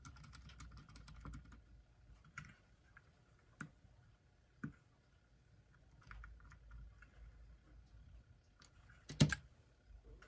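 Sparse small clicks and taps from a small screwdriver and a Hamilton Sangamo clock movement being handled, with a louder knock about nine seconds in.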